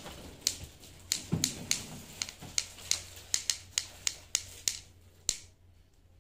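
A run of sharp, irregular clicks or taps, about two or three a second, with one soft thump a little over a second in; the clicking stops about five seconds in.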